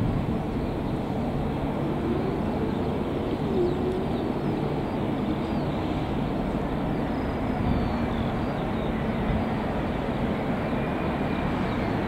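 Boeing 787-8 jet airliner on final approach, its engines a steady low rumble.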